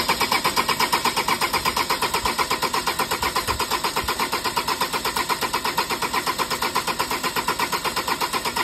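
Ford Transit 2.2 diesel engine turning over on its starter motor without firing, a steady, even chugging of about six to seven beats a second: a crank-no-start fault.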